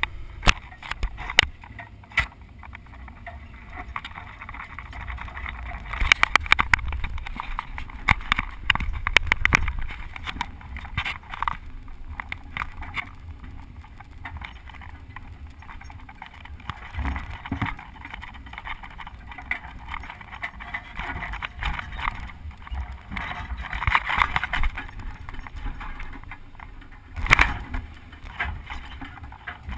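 Open Toyota Land Cruiser driving over a rough bush track: a low engine rumble under irregular rattles and knocks from the body and fittings as it jolts along. The knocks come in clusters, heaviest around a quarter of the way in, with one sharp loud knock near the end.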